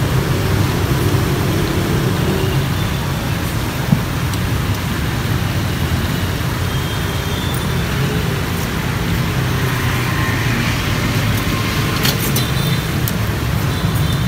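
Steady low rumble and hiss of street traffic, with a single sharp knock about four seconds in.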